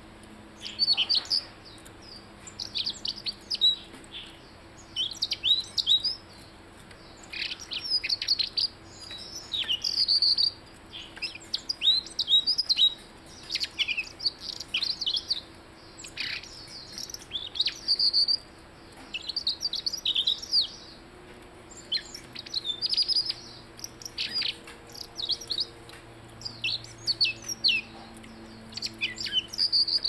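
Caged blue-headed robin singing: repeated short phrases of quick, high, downward-sweeping notes, a second or two apart with brief pauses between.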